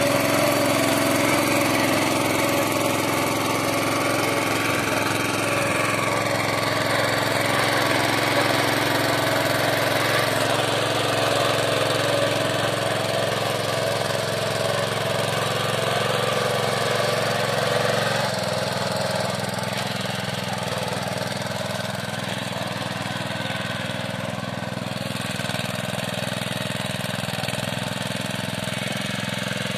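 The Honda GX petrol engine of a Meccanica Benassi BL-105 walk-behind tiller runs steadily under load while the machine pulls a ridging plough through the soil to open a furrow. It is a little quieter in the last third.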